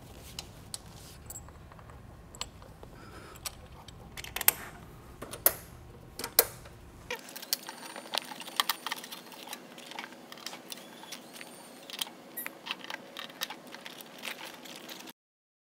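Welding cable connectors being plugged in and handled: a power plug seated in the welder's socket, then gas fittings and a multi-pin control plug on a cold wire feeder, giving an irregular scatter of sharp plastic and metal clicks and rattles.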